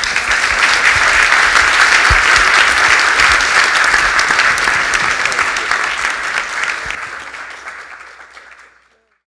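Audience applauding after a lecture: dense, steady clapping that dies away over the last couple of seconds.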